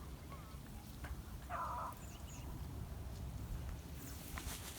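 A beagle gives one short yelp about a second and a half in, over a steady low rumble, with a few sharp clicks near the end.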